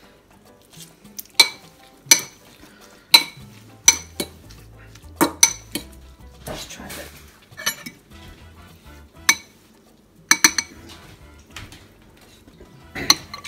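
A metal fork clinking against a white ceramic bowl as chunky salsa is mixed: about a dozen sharp, ringing taps at uneven intervals, including a quick double tap about ten seconds in.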